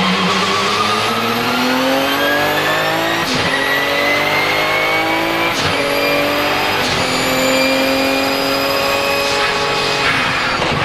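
Porsche 997 GT2 RSR's 3.9-litre twin-turbo flat-six accelerating hard through the sequential gearbox. Three quick upshifts about three, five and a half and seven seconds in cut the rise in revs. A high turbo whistle dips at each shift and fades near the end.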